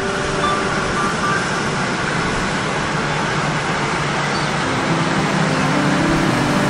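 E6 series Shinkansen train rolling slowly past at close range: a steady rushing rumble of wheels on rail and running gear.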